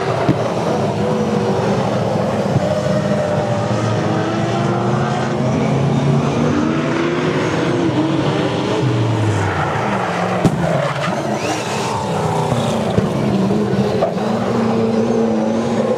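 Saloon race car engines running hard at speed, several at once, their pitches rising and falling as the drivers accelerate and lift through the turns.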